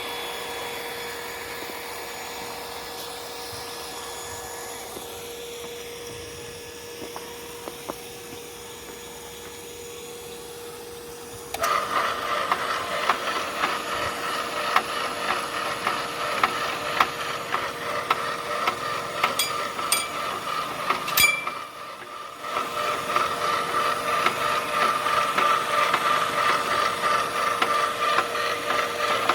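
Mini rotary borewell drilling rig running: a quieter steady hum, then about a third of the way in the machinery suddenly gets much louder with a steady whine and rapid grinding ticks, dips briefly about two-thirds of the way in, and carries on.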